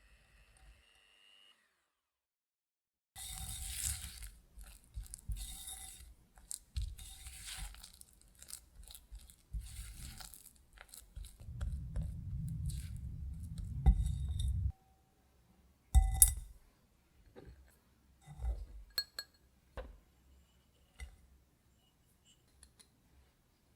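Kitchen handling sounds of baking preparation: irregular clinks, taps and scraping of utensils against a glass bowl, with a few sharp knocks and a stretch of low rumbling in the middle. It starts after about three seconds of near silence.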